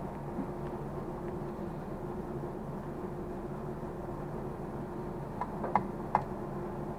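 Steady machinery hum, with a few short metallic clicks near the end as a replacement Z-axis spring and a tool are worked against a stud in a saw-sharpening machine.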